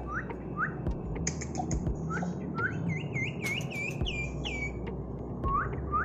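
Common iora (cipoh) whistling: a run of short rising whistled notes, about three a second, then a quicker string of higher notes that rise and dip in the middle, and a few more rising notes near the end. A steady low background hum runs underneath.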